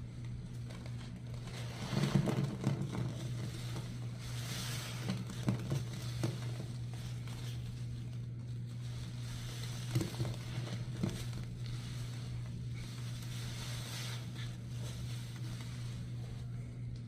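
Soapy, cleaner-soaked sponge squeezed by hand, its foam crackling and squishing in soft bursts, over a steady low hum.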